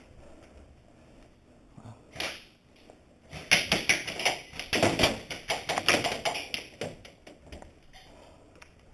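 Airsoft guns firing rapid strings of shots: a dense run of sharp clicks beginning about three and a half seconds in and lasting some three seconds, after a single short burst a little after two seconds.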